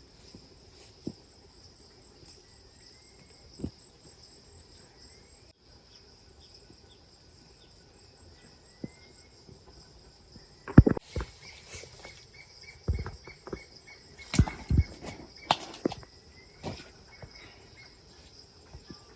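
Steady high chirring of insects, with a bird giving short chirps now and then. About halfway through, a run of loud thuds and knocks comes in bursts for several seconds.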